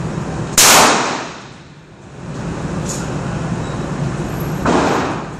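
A 12-gauge shotgun shot fired with buckshot: one very loud bang about half a second in, echoing off the indoor range and dying away over about a second. A second, softer bang comes near the end.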